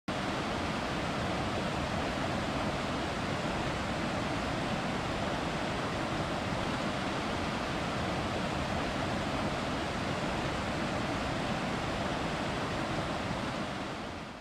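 Steady, even rushing noise of the kind made by falling water, surf or wind, with no separate events. It dips slightly near the end and then cuts off suddenly.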